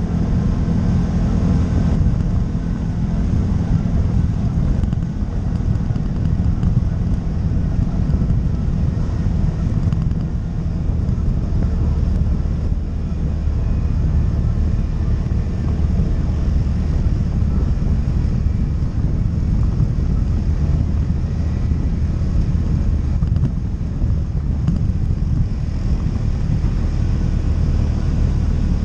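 ATV engine running steadily while riding, a low drone that shifts a little in pitch.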